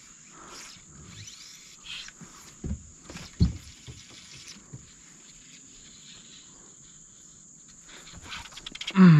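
Steady, high-pitched chorus of insects (crickets), with two dull knocks about three seconds in and a short, low, falling vocal sound right at the end.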